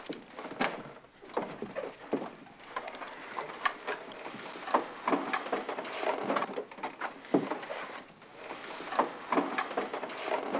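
Scattered knocks, clicks and shuffling of people moving about and handling rifles, with no steady sound underneath.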